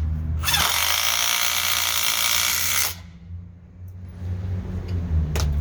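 DeWalt DCF887 20-volt brushless impact driver hammering a lag bolt in, for about two and a half seconds before cutting off abruptly. A single sharp click comes near the end, over a steady low hum.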